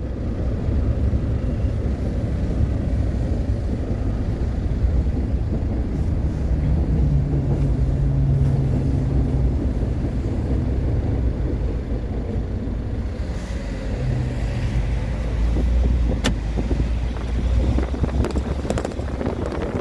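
Wind buffeting the microphone over the low rumble of a Seoul Subway Line 2 train crossing a steel railway bridge. A low hum comes in twice, and there is a sharp click about sixteen seconds in.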